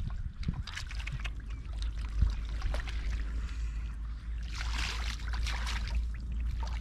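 Shallow water in a flooded rice field splashing and sloshing as hands work through it, with scattered small clicks and a louder burst of splashing about two-thirds of the way through, over a steady low rumble.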